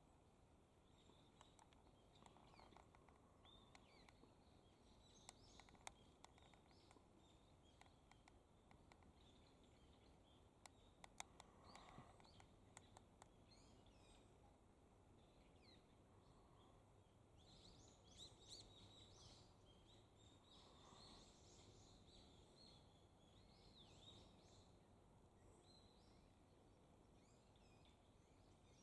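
Faint outdoor park ambience with small birds chirping on and off, busiest past the middle, and a few soft clicks in the first half.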